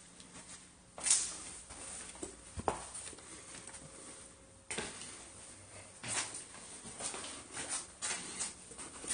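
Irregular footsteps and scuffs on a gritty, debris-strewn floor, with a sharper knock about a second in and a few more knocks and clatters after.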